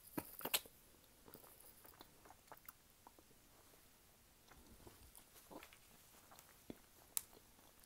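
Faint close-up chewing of a mouthful of honeycomb, with scattered small wet clicks of the mouth. There are a couple of louder smacks in the first half-second and one more sharp click near the end.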